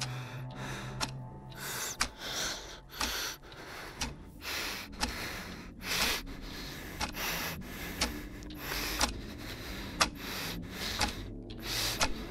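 A man panting heavily in distress, a ragged run of sharp breaths and gasps at about two a second.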